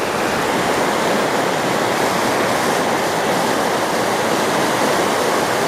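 River rapids rushing, a loud, steady wash of fast-moving water.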